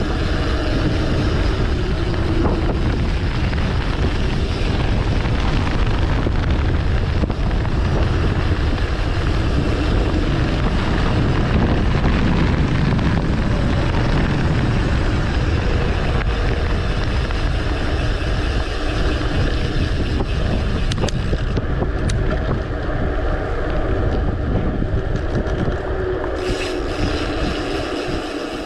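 Steady wind rushing over the microphone of a handlebar-mounted camera on a bicycle being ridden along a paved road, with road noise from the moving bike mixed in.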